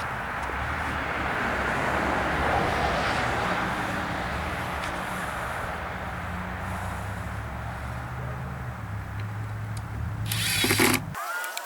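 Chainsaw engine running steadily under throttle while cutting a log, with a steady low engine note and a hiss of cutting noise; it stops abruptly near the end.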